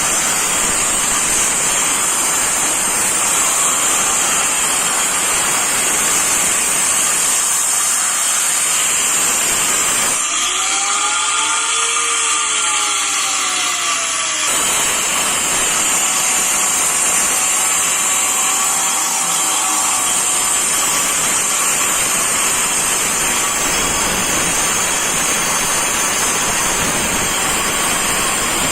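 Angle grinder with a cutting disc running steadily as it cuts into a house wall or floor, a loud, continuous high-pitched grinding noise. About ten seconds in, the sound changes for roughly four seconds, with a pitch that rises and then falls, before the steady cutting noise returns.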